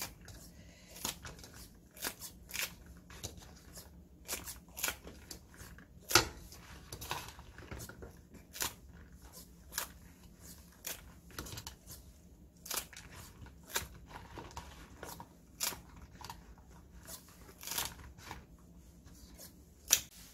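Kitchen scissors snipping shishito peppers into pieces in a plastic bowl: a sharp snip roughly once a second at an uneven pace, the loudest about six seconds in.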